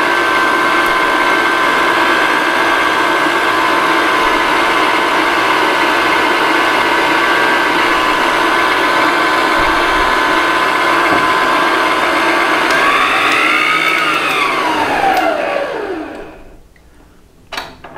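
Hamilton Beach stand mixer running steadily with a paddle beater in thick cookie dough, a motor whine with several steady tones. About three-quarters through it is switched off and winds down with a falling whine, and a few clicks follow near the end.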